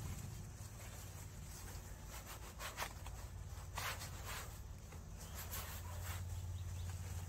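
Black plastic mulch film and its bag rustling and crinkling as they are lifted and handled, in a few short bursts, over a low steady hum.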